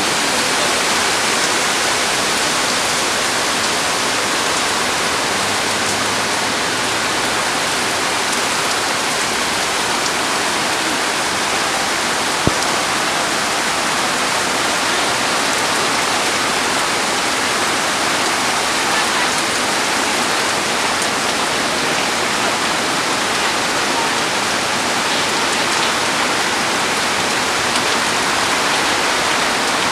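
Heavy rain falling and muddy floodwater pouring over the edge of a concrete roadside drain: a steady, unbroken rush. One brief click near the middle.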